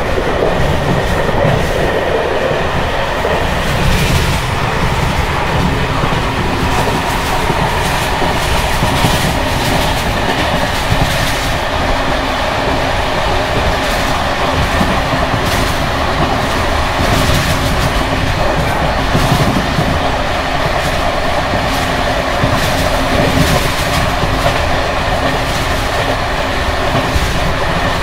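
ČD Bd264 coach on worn Görlitz V bogies running over uneven jointed track: a loud, steady rattling ride with wheels clacking over rail joints and scattered knocks. The brake rigging bouncing on the bogies makes the ride very noisy, a sign of bogies that have run many kilometres since their last major maintenance.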